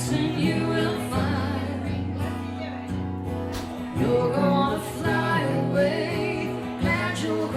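Live stripped-down band music with singing over held bass notes.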